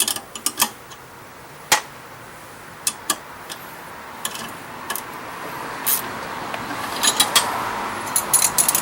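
Irregular metallic clicks and clinks of a wrench working bolts on a snowblower's shift linkage as they are tightened, coming more often near the end, over a faint background noise that grows slightly louder.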